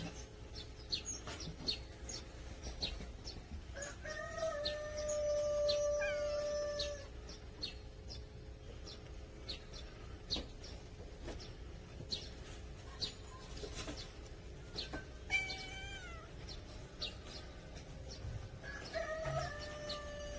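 A rooster crowing: a long held crow about four seconds in, a shorter call about fifteen seconds in, and another long crow starting near the end. Short high chirps of small birds sound throughout.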